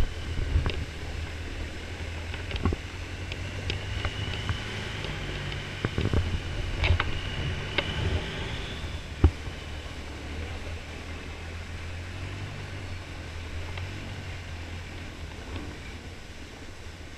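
Long-tail boat's engine running at speed, a steady low drone, with water rushing along the hull; a few sharp knocks come in the first half.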